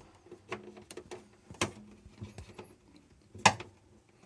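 Scattered small clicks and knocks of hands fitting the new thermistor and its clip inside an RV refrigerator, about half a dozen in all, the loudest about three and a half seconds in.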